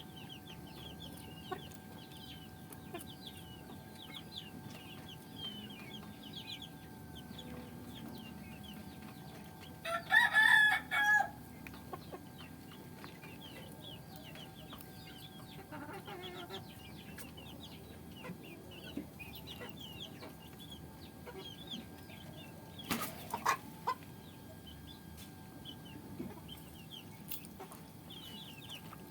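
Chickens: a steady scatter of short high chirps, and a rooster crowing once, loudly, about ten seconds in. A few sharp knocks come later.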